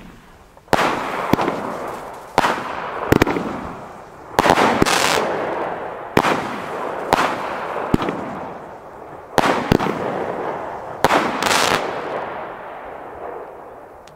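Small consumer firework battery (cake) firing shot after shot: about a dozen sharp bangs, roughly one a second, each trailed by crackling that fades out. The shots stop near the end.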